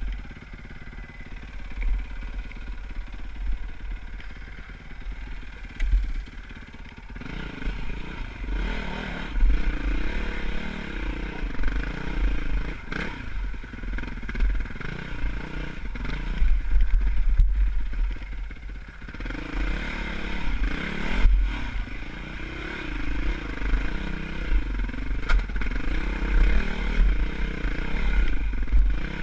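Dirt bike engine running, low and steady for the first few seconds, then revved up and down repeatedly from about seven seconds in as the bike climbs a rocky trail.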